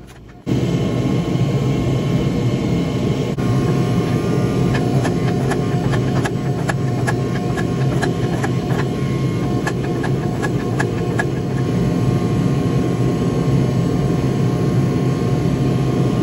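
Forging press running steadily, a loud low mechanical drone, as it squeezes a red-hot wootz steel bar. A run of sharp clicks comes in the middle.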